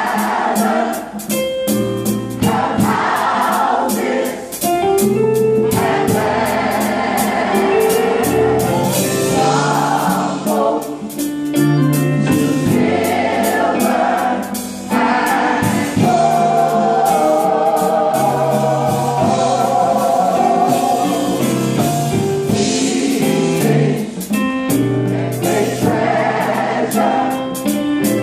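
Gospel choir singing with a live band, a drum kit keeping the beat with steady drum and cymbal hits.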